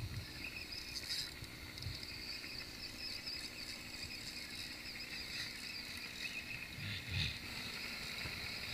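Fishing reel working against a hooked red drum: a steady high rattling buzz, with a few dull knocks against the kayak, the loudest about seven seconds in.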